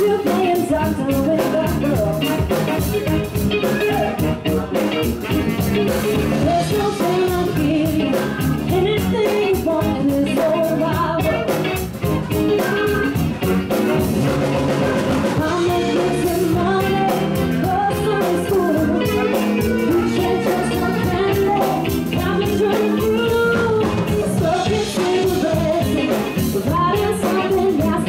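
Live band playing: a woman sings lead into a microphone over electric guitar, bass guitar and drum kit.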